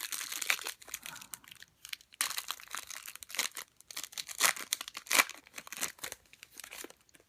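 Foil wrapper of a Topps Chrome trading-card pack crinkling and tearing as the pack is opened, a dense run of crackles that stops near the end.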